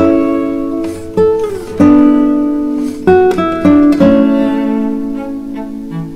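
Background music: plucked guitar notes, each ringing and fading, with a short sliding note about a second and a half in.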